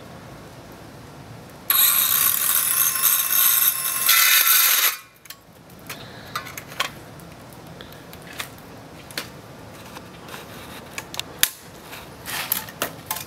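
Ryobi 18-volt cordless circular saw cutting through PVC pipe, a loud high-pitched run of about three seconds that starts suddenly and stops abruptly. Scattered light clicks and knocks follow.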